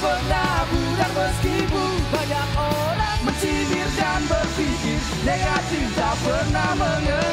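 Pop-punk band playing live: electric guitars, bass and drums, with a melodic line over the band.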